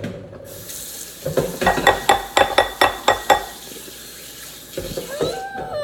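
Homemade glue slime being stirred and squished in a bowl: a quick run of wet, squelching clicks lasting about two seconds.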